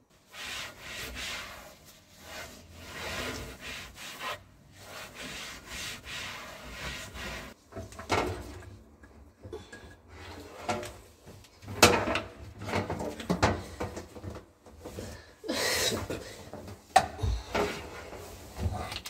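Repeated rubbing and scraping strokes broken by several sharp knocks, the loudest about twelve and seventeen seconds in.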